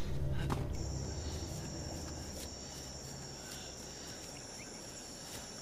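Insects chirring in a steady high trill that comes in under a second in, field ambience over a low music drone that fades out in the first two seconds.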